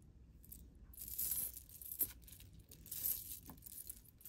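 Links of a chunky gold-tone metal bag chain clinking as it is handled, in two jingling spells about a second and about three seconds in, with a sharp click between them.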